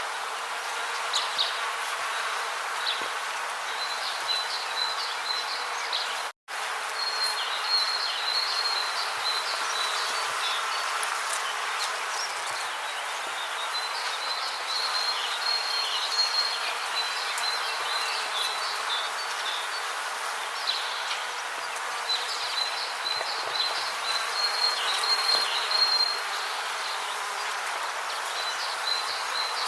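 Rainforest ambience: a steady hiss with repeated runs of high, rapid chirping trills, typical of insects. The sound cuts out for a split second about six seconds in.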